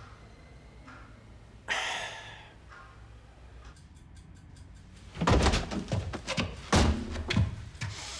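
A run of heavy thumps and knocks in a small room: one softer knock about two seconds in, then a cluster of loud deep thuds from about five seconds in, the strongest two about a second and a half apart.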